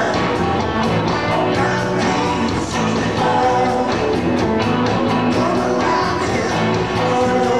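Live rock-and-roll band playing with a singer: electric guitar, bass and a drum kit keeping a steady beat.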